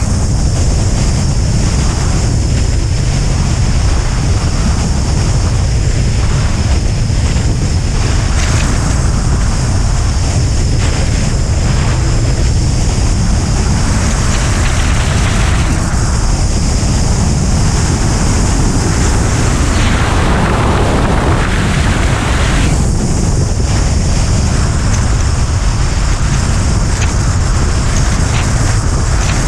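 Wind noise from the airflow of a Duo Discus glider in flight, buffeting the microphone of a camera mounted on its wing. It is loud and steady throughout, with a rougher stretch about twenty seconds in.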